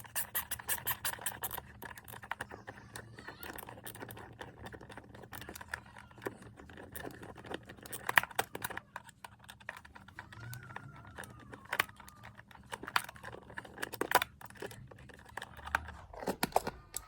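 Screwdriver and hands working the screws and faceplate of a wall power socket: a fast, even run of clicks at first, then scattered clicks, scrapes and a few sharper knocks as the plate is worked loose.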